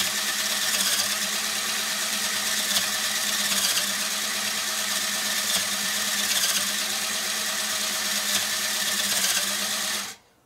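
Small electric motor driving a LEGO Technic mechanism of meshing plastic gears and linkage beams: a steady whir with plastic gear chatter, cutting off suddenly near the end.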